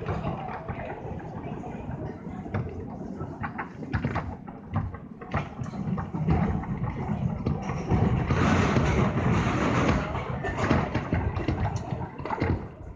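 R179 subway train running through a tunnel, with a low rumble and wheels clicking over rail joints. The rushing noise swells louder about eight seconds in.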